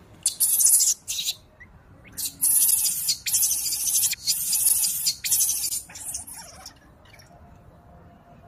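Baby macaque screaming in distress while an adult macaque holds it down: shrill, harsh screeches in about five long bursts with brief breaks, fading out for the last couple of seconds.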